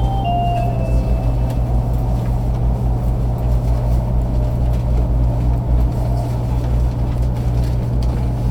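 Interior running noise of a JR 500 series Shinkansen: a steady low rumble and hum of the moving train. The last notes of the onboard chime melody fade out in the first second.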